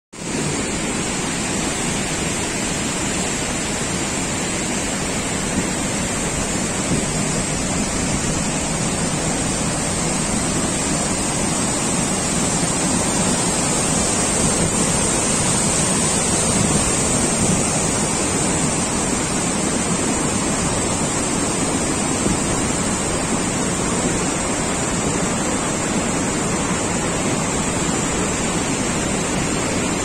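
Waterfall and whitewater stream rushing in a loud, steady, unbroken noise of falling and churning water.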